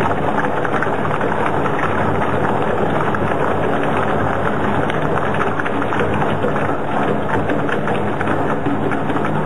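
Brentwood BWS 400-1250 single-shaft shredder grinding wood: a dense, continuous crackle of wood snapping and splintering against the rotor over a low machine drone.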